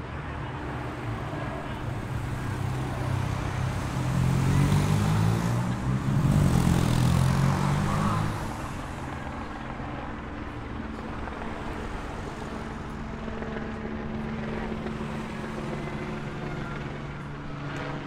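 Race-convoy motor vehicles passing on the road: engine sound swells to its loudest from about four to eight seconds in as one goes by close, its pitch shifting, then a steadier engine hum carries on.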